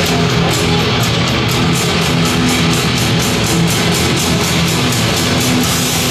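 Loud rock music with a fast, steady beat of about five hits a second.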